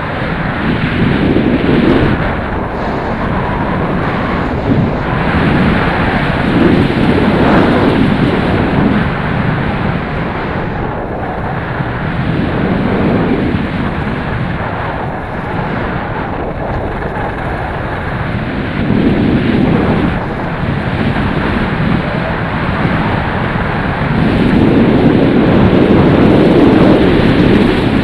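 Wind buffeting a helmet camera's microphone during a fast ski run. The rushing is loud, swelling and easing every few seconds and strongest near the end, with the skis hissing over packed snow beneath it.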